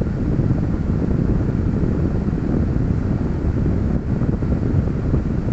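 Steady low rumbling noise with no distinct tone or rhythm.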